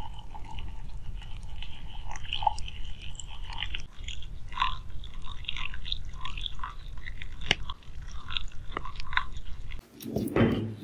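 Molten metal poured into a sand casting mould, crackling and popping with many small clicks as it meets the sand, over a steady low rumble. Near the end this gives way to a couple of louder knocks and scrapes as the sand box is handled.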